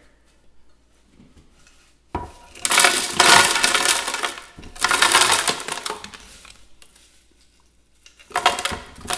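Crushed ice poured from a glass measuring cup into an empty plastic Ninja blender jar, clattering and rattling against the jar. It comes in three pours: one starting about two seconds in, a second right after it, and a shorter one near the end.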